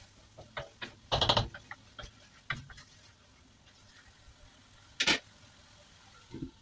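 Wooden spatula scraping and knocking against a wok while stirring a tomato mixture, with a rattling run of knocks about a second in. A single sharp clank about five seconds in, then a short duller knock as a glass lid is brought over the wok.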